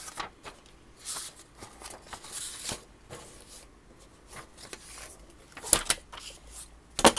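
Rummaging sounds: objects being shifted and rustled, with two sharp knocks, one a little before 6 seconds in and a louder one near the end.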